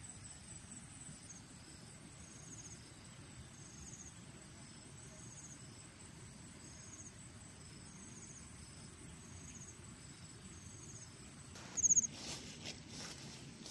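An insect chirping in short high pulses, repeating about once a second. Near the end come a few loud rustles and steps through grass and leaves.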